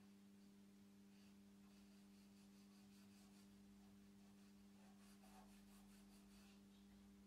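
Near silence: a steady low hum, with faint soft rubbing as fingertips brush over the painted wood of the door frame, twice.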